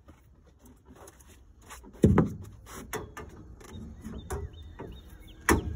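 Metal boat-blind rails being knocked and tapped together to seat the joints: a heavy thud about two seconds in and another near the end, with a few lighter clanks between.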